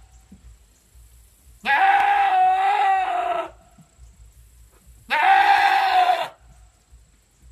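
A goat screaming: two long, loud, human-like cries, the first about two seconds in and lasting nearly two seconds, the second about five seconds in and a little shorter.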